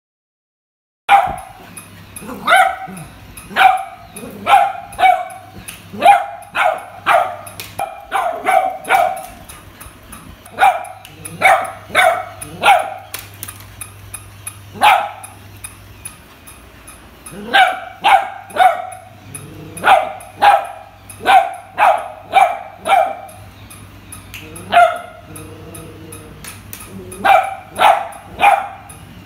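Beagle puppy barking repeatedly in runs of several sharp barks, starting about a second in, over a faint steady low hum.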